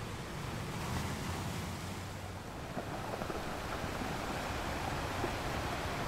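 Ocean surf: waves breaking and washing in, a steady rushing noise with a low rumble beneath. A fizzing hiss of foam fills in from about halfway through.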